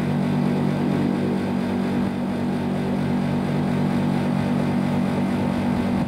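Steady low hum of a split air conditioner's outdoor unit running in heating mode on R410A.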